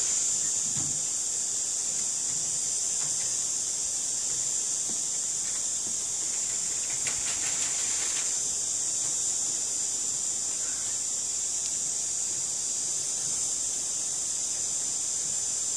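Steady high-pitched hiss, with a short scratchy rustle about seven seconds in.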